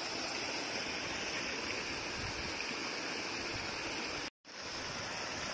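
Steady rush of water flowing through a narrow bamboo-mat channel in a field ditch. The sound cuts out for an instant a little past four seconds in.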